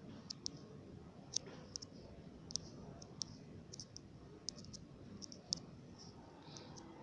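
Faint, irregular small clicks, a few each second and often in pairs, over a low steady room hum.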